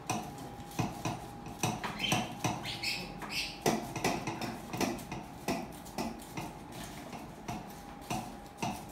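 Irregular light taps, rustles and crinkles of paper cupcake liners in metal muffin tins as cheesecake crumb crust is pressed down by hand, over a faint steady hum.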